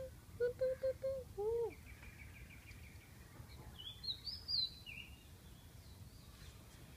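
A few short pitched vocal notes and a falling note near the start, then a small bird chirping a few high notes about four seconds in, over faint outdoor background noise.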